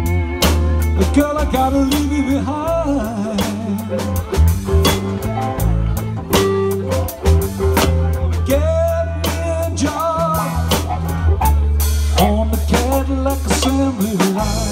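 Live blues band playing: an electric guitar plays lead lines with bent notes over drum kit, hand drums and a steady bass line.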